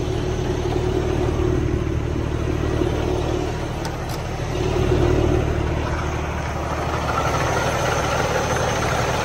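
Heavy-truck diesel engine of a 2020 Peterbilt idling steadily, heard close up at the front of the truck while it runs a diesel particulate filter regeneration. A faint high whine joins about seven seconds in.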